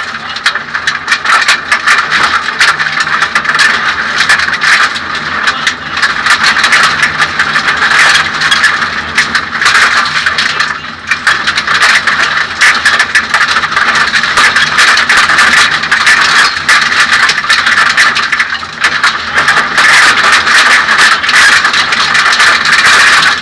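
In-car sound of a Suzuki Swift 1600 N2 rally car at speed: its 1.6-litre four-cylinder engine running hard under load, with loud, constant rattling and clattering from the stripped cabin. The level dips briefly a few times, most clearly about eleven seconds in.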